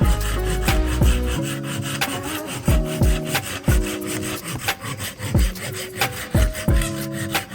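Background music with a steady beat: deep kick drums that drop in pitch, held synth chords and quick ticking percussion.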